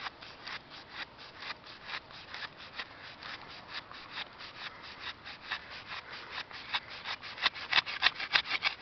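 Blade of a Cudeman MT-4 folding knife sawing through a thick rope in repeated back-and-forth strokes, about three a second, rasping on the fibres; the strokes get louder and quicker over the last two seconds.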